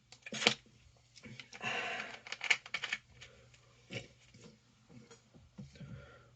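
Small handling sounds: a few sharp clicks and knocks, the loudest about half a second and two and a half seconds in, with a brief rustle between them and lighter ticks after.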